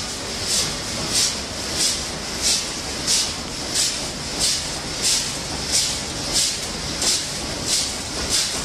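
Snack packaging line machinery running, with a regular hiss about one and a half times a second over a steady mechanical noise.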